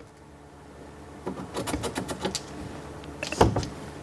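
A run of light clicks and taps, then one louder knock near the end: hands and a marker handling a cabinet door hinge against the wooden cabinet frame.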